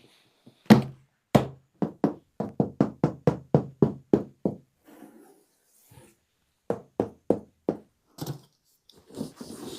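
A run of sharp, hollow knocks, about three a second and quickening slightly, then a pause and four more knocks, followed by soft rustling near the end.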